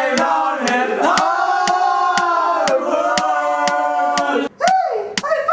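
Several voices sing held, harmonised a cappella chords, with a steady clock-like ticking running underneath. Near the end the chord cuts off and a single voice slides up and down in pitch.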